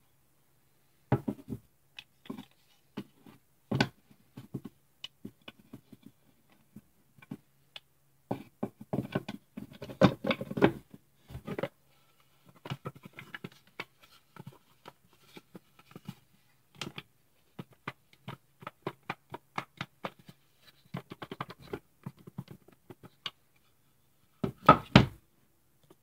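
Handmade wooden puzzle box with tilt latches being handled, closed and tilted on a wooden table: irregular sharp clicks and knocks of wood on wood. The loudest clusters of knocks come about ten seconds in and near the end.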